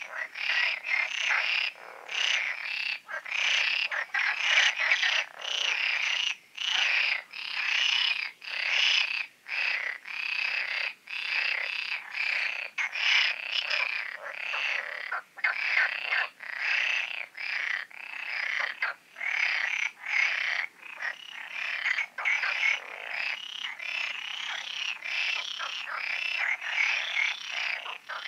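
A dense chorus of many frogs calling over one another, in bouts broken by brief pauses every second or so.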